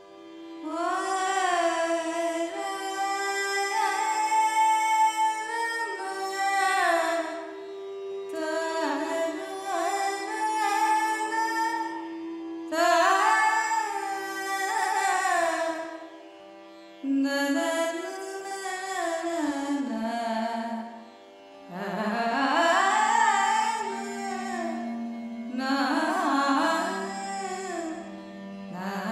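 Carnatic alapana in raga Ranjani: an unmetered melodic line gliding and ornamenting between notes over a steady drone, in several phrases with short pauses between them.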